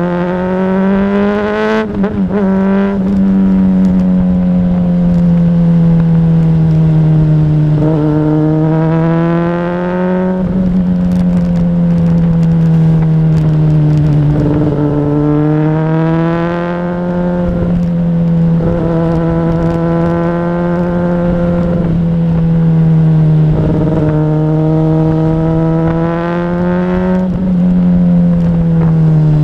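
Honda CBR600RR's inline-four engine running at steady mid revs as the motorcycle rides along, its note rising and falling gently with the throttle. A few brief breaks interrupt it, where the pitch dips and then picks up again.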